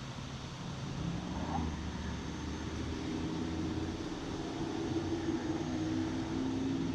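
A distant engine drone, a steady low hum that grows a little louder from about a second in, over a steady hiss of wind.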